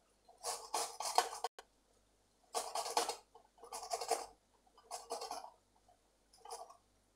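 Tomato rubbed by hand across a stainless-steel grater: five bursts of wet scraping about a second apart, the last one shorter and fainter. The pulp is grated off while the skin stays in the hand.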